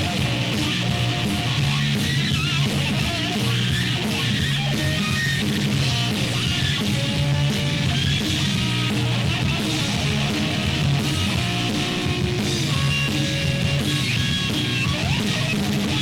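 Noise-rock recording: a dense wall of distorted electric guitar over a steady low drone, at an even loud level.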